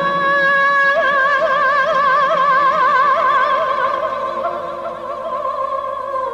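A woman singing one long, high held note with a wide, even vibrato, growing softer over the last couple of seconds.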